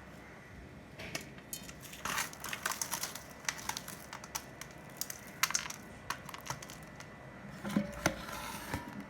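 Jaggery-coated puffed rice crackling and crunching as it is squeezed by hand into balls: a busy run of small, crisp clicks that comes and goes, thickest a couple of seconds in and again near the end.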